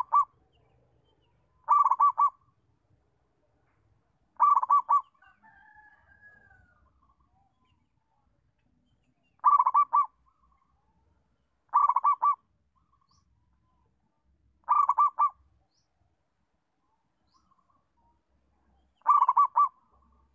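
Zebra dove (perkutut) cooing: a short rolling phrase of three or four quick notes, repeated seven times at gaps of two to five seconds.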